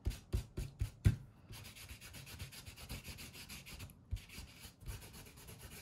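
Dauber-topped bottle of Distress Stain scrubbed back and forth over die-cut paper words, making a steady rubbing scratch of quick, even strokes. It starts with several low thumps in the first second as the dauber is dabbed down.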